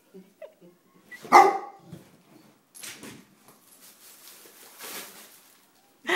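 Short, loud animal calls from the pets, one about a second in and another at the end. In between is a fainter crinkling of the plastic bag as the golden retriever puppy noses the bag with the cat inside.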